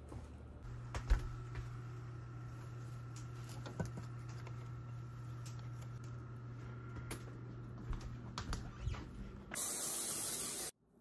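Aerosol cooking spray hissing once for about a second near the end, greasing a baking sheet. Before it come scattered light clicks and knocks.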